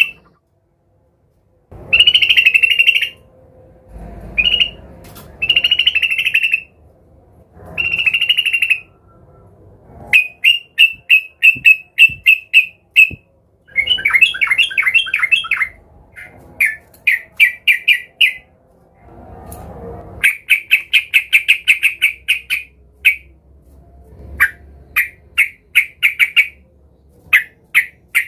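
Yellow-vented bulbul (trucukan) calling agitatedly, as a bird challenging a rival does. Short bursts of harsh chattering phrases come first; from about a third of the way in they give way to fast runs of clipped, repeated notes at about four a second.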